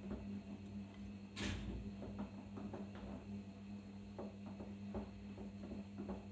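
Arçelik 5083 front-loading washing machine in its main wash: the motor hums steadily as the drum turns, with water sloshing and small irregular knocks of the wet load tumbling, and one louder whoosh of water about a second and a half in.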